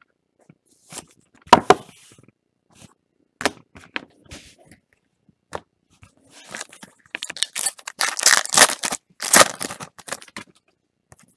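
Baseball cards being handled with a few light clicks and rustles, then, from about halfway, a trading-card pack wrapper crinkling and tearing as it is opened.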